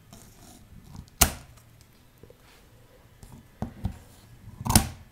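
Scissors snipping through plastic packing straps on a cardboard box: two sharp snaps, about a second in and near the end, with a couple of lighter clicks of the blades just before the second.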